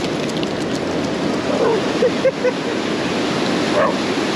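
Ocean surf breaking and washing up the beach, a steady rush, with a few brief faint voices in the background.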